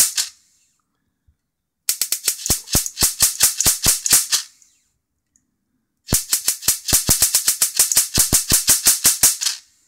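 High-voltage arcs from a Mitsubishi CRT monitor's flyback transformer snapping across a gap of about 20 mm to the earthed chassis, in runs of rapid sharp snaps, several a second, with pauses of a second or more between runs. The flyback's built-in capacitor gives each discharge its force.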